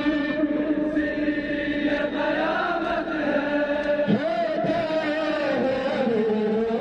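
Men's voices chanting a mourning lament (nauha), long held notes that glide up and down.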